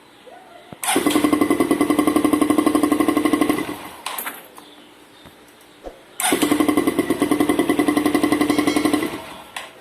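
Motorcycle electric starter motor cranking the engine in two bursts of about three seconds each, a whirr with a fast, even pulsing that starts and stops abruptly. It is a test of the freshly cleaned starter.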